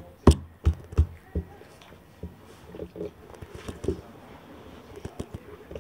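A small child's hand banging on a wooden tabletop close by: five sharp knocks in the first second and a half, then softer, scattered taps.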